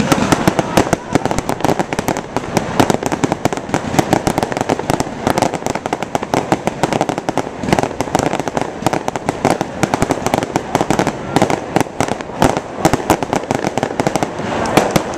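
Aerial fireworks bursting overhead in a dense, continuous barrage of rapid sharp pops and crackles, many every second.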